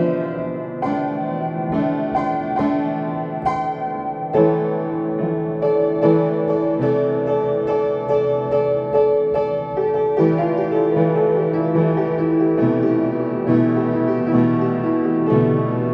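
Piano playing a calm, slow piece, with notes and chords struck one after another and each ringing on under the next.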